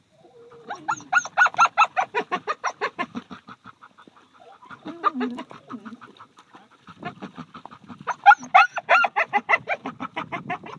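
Duck call blown in rapid runs of quacks, about five a second. A long run tapers off over the first few seconds, a few scattered quacks follow, and a second loud run comes a few seconds before the end.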